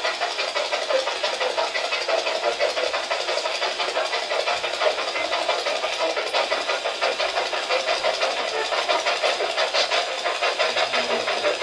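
Spirit box sweeping through radio frequencies: a continuous rapid, choppy hiss of static.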